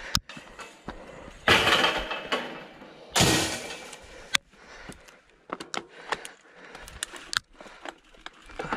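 Metal field gate clanking and knocking as it is opened and shut, with two loud rushing noises about a second and a half and three seconds in. Then a scatter of sharp clicks and rattles as the mountain bike sets off over rough grass.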